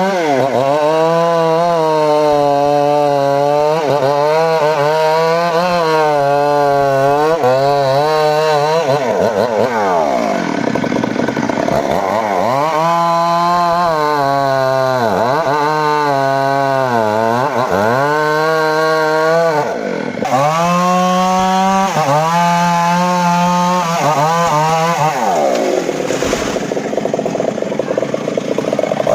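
Homemade table circular saw ripping teak wood. The saw's drive runs loud and steady, and its pitch sags again and again as the blade is pushed into the wood and then picks back up, dropping deepest twice.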